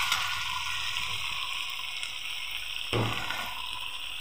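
Onion-tomato masala with ginger-garlic paste sizzling in hot oil in a kadhai, a steady frying hiss, with one soft knock about three seconds in.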